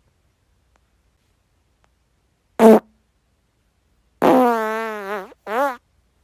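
A man farting three times: a short loud blast, then a long, wavering, pitched fart lasting about a second, then a short one that rises in pitch.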